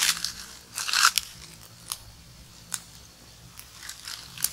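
Small fire of dry leaves and twigs crackling, with sharp, irregular snaps and crunches of dry litter as it burns and is fed; the loudest crunch comes about a second in.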